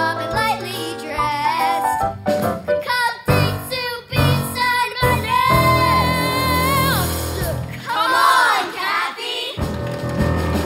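Children's voices singing a show tune over band accompaniment, with a long held note about halfway through followed by sliding, swooping vocal lines.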